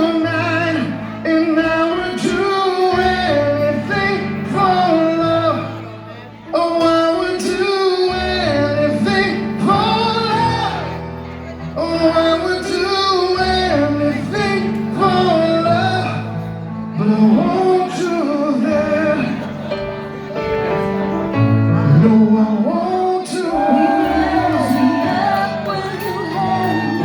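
Live rock band playing a power ballad in a large hall, with a singer holding long notes with vibrato over sustained bass and keyboard chords and cymbal hits.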